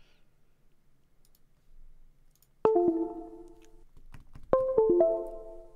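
Two Windows USB device chimes about two seconds apart, each a short stepped tone that rings and fades: the disconnect sound as the flight controller drops off USB, then the connect sound as it comes back. Light mouse clicks come before them.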